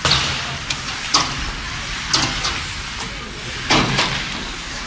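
Ice hockey play in a rink: short, sharp scrapes and knocks from skates, sticks and puck on the ice, about four in all, over a steady hum of crowd chatter.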